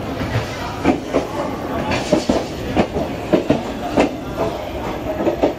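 Passenger train's wheels clattering over rail joints and points, irregular knocks over a steady rumble as the train moves.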